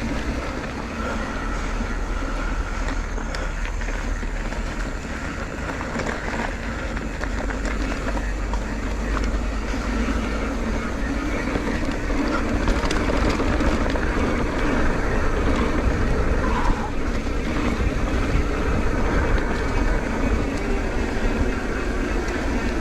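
Motorcycle riding along the road: engine running under way with heavy wind and road noise on the microphone, the sound swelling slightly louder in the second half.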